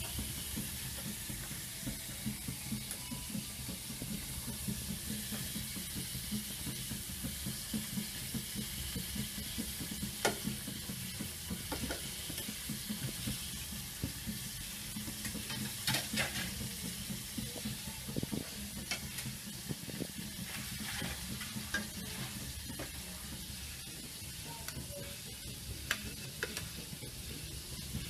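Beef steak sizzling steadily as it fries in hot oil in a pan, with a low steady hum underneath and a few light clicks.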